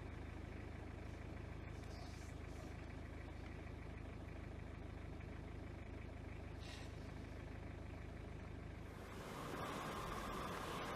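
Faint steady low hum of background noise; about nine seconds in a louder hiss comes in.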